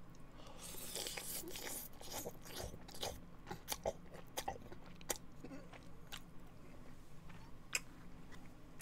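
Spaghetti being eaten close to the microphone: noodles slurped in and chewed wetly, with many sharp mouth clicks.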